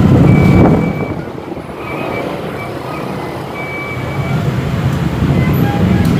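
Busy road traffic: motorcycles and cars running in congested, slow-moving traffic. The sound eases about a second in and builds again toward the end.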